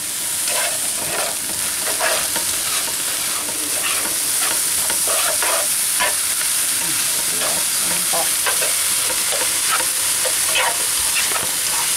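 Thawed shrimp and scrambled egg sizzling in a frying pan, with a spatula scraping and tapping against the pan as it stirs them in short, irregular strokes.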